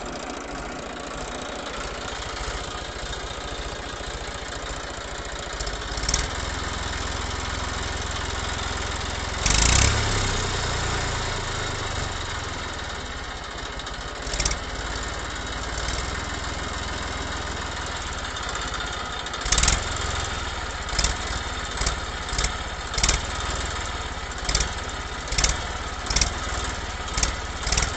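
A small engine running steadily, the running sound of a toy tractor as it drives along. In the last eight seconds it comes with a run of short knocks about once a second.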